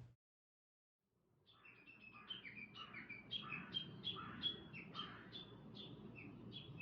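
A songbird singing a quick series of short, repeated, downward-slurred chirps, about three a second. The chirps begin after a second of silence and grow stronger.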